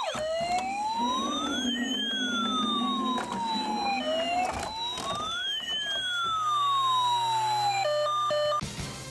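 Electronic toy ambulance siren in a slow wail, rising and falling twice. Near the end it breaks into a few quick stepped beeps and then stops.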